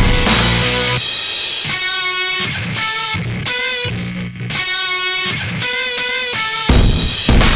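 Rock background music led by guitar. About a second in, the bass and drums drop away to plucked guitar notes, and the full band comes back near the end.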